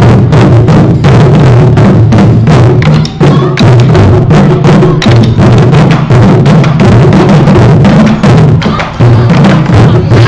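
Taiko drum ensemble playing: many large barrel drums struck with wooden sticks in a loud, dense, driving rhythm.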